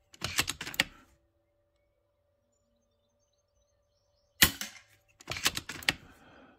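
FX Impact M3 .177 PCP air rifle firing one sharp shot a little over four seconds in. Quick runs of metallic clicks come just after the start and again just after the shot, as the action is cycled for the next pellet.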